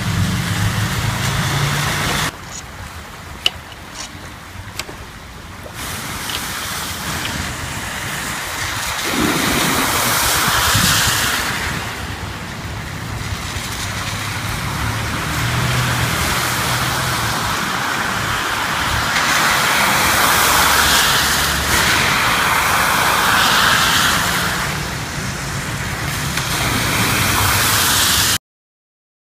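Cars driving through a rain-flooded street: tyres splashing through standing water over the steady noise of heavy rain, with the noise swelling as each car passes. Cuts off suddenly near the end.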